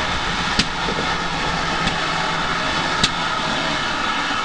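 GWR 2884-class 2-8-0 steam locomotive No. 3802 giving off a steady hiss of steam, with two sharp metallic clicks, one about half a second in and one about three seconds in, and a fainter one between them.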